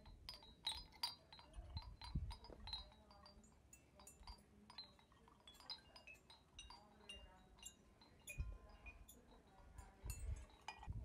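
Hanging wind bells clinking and ringing, many light irregular strikes each with a short ringing tone, with a few soft low rumbles in between.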